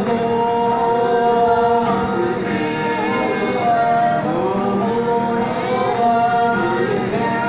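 A small mixed group of men and women singing together in harmony, with an acoustic guitar accompanying them. The voices hold long notes that shift in pitch every second or so.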